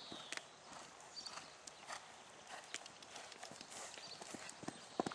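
Hoofbeats of a ridden horse moving on a sand arena: an uneven run of soft knocks and clicks.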